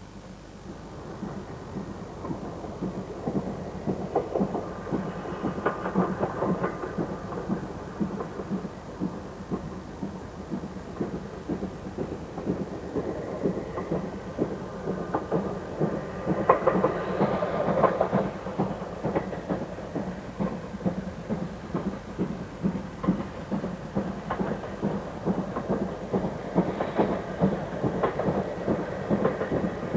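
GWR Castle class four-cylinder 4-6-0 steam locomotive working tender-first, its exhaust beating in a rapid, even rhythm. It grows louder over the first few seconds as the engine approaches.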